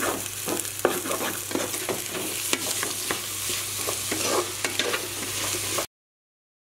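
Chopped vegetables frying in a metal pot while a spoon stirs them: a steady sizzle with frequent clicks and scrapes of the spoon against the pot. The sound cuts off abruptly near the end.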